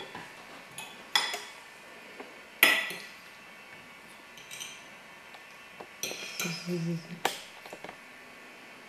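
Metal fork clinking and scraping against a ceramic plate of food: a few sharp, separate clinks, the loudest about two and a half seconds in, with softer scrapes between.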